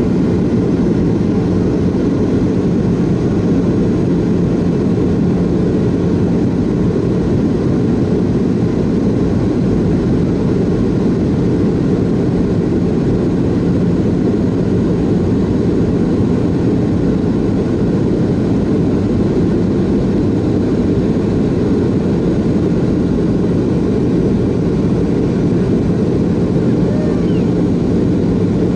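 Boeing 717 cabin noise on approach: its rear-mounted Rolls-Royce BR715 turbofan, just outside the window, running steadily. The result is a constant deep rush with a steady low hum.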